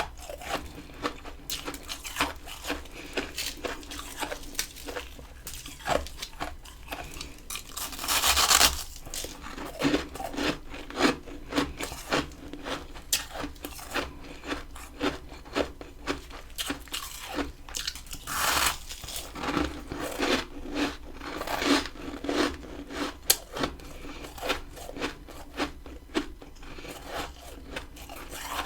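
Freezer frost crunching, with many sharp crackles throughout and two longer scraping, crunching stretches, about eight seconds in and again about eighteen seconds in.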